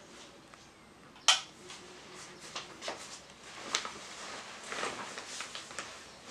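A single sharp click about a second in, then a run of soft rustles and small clicks as a backpack is shifted off a shoulder and handled by a bed.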